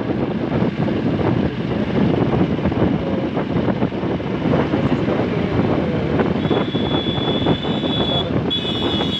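Motorcycle engine running at cruising speed with wind rushing over the handlebar-mounted microphone. In the last few seconds a thin, steady high-pitched tone comes in twice.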